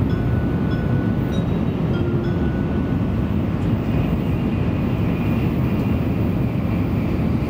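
Shinkansen bullet train running at speed, heard from inside the passenger cabin: a steady, dense rumble, with faint thin whistling tones that come and go.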